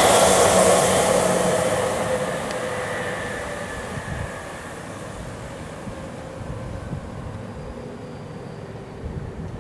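Tokyu 5000 series electric commuter train running past, its wheel and motor noise fading away over the first few seconds with a falling whine. A quieter train running sound follows, with a few faint knocks.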